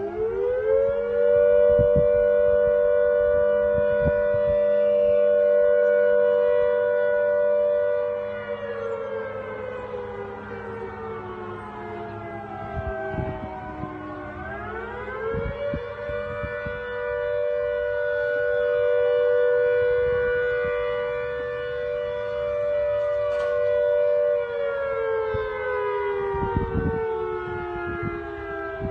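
Fire station siren sounding a test: it winds up to a steady two-note wail, holds for about eight seconds, slides down, then winds up again, holds, and is falling away near the end.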